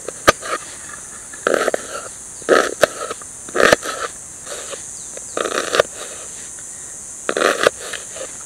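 A knife slicing through a raw onion on a metal pan: short crisp crunches every second or so, with a few sharp clicks of the blade against the pan.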